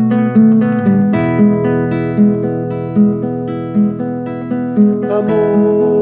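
Nylon-string classical guitar played by hand, plucked chords with a low note sounding about every three-quarters of a second, the instrumental passage between verses of a song.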